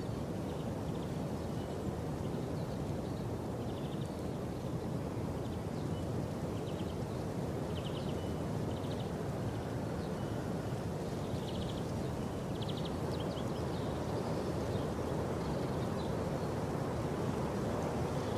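Outdoor ambience: a steady low rumbling noise, with short buzzy chirps of small birds every second or so. No crash or impact of the car stands out.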